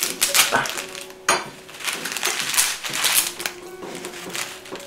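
Sweet packet crinkling and rustling in the hands as it is worked at and pulled to get it open, with a sharp crackle about a second in. The packet is hard to open. Background music plays underneath.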